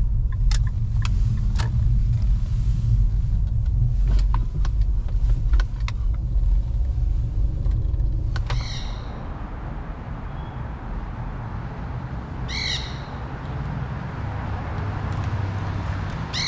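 Low engine and road rumble of a 2006 Infiniti M35 with its 3.5-litre V6, heard from inside the car as it is driven, with scattered light clicks. About eight seconds in, the rumble falls away to a steady hiss, and a short high chirp repeats about every four seconds.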